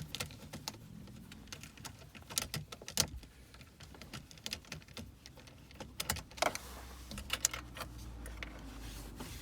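Irregular light clicks and taps of a screwdriver working a screw out of a car's plastic dashboard trim, with a sharper knock about three seconds in and a quick cluster of clicks a little past six seconds.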